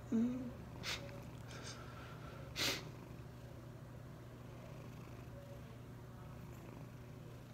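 A man crying: a short sobbing whimper that falls in pitch at the start, then two sharp sniffs through the nose, about a second and nearly three seconds in, over a steady low hum.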